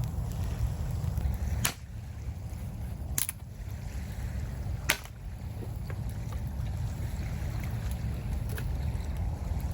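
Steady low rumble of surf and wind on the microphone, broken by three sharp snaps in the first five seconds.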